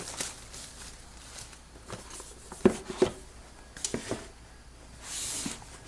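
Hands handling product packaging: a few light knocks and clicks from the box and its parts, then a brief rustle of packaging about five seconds in.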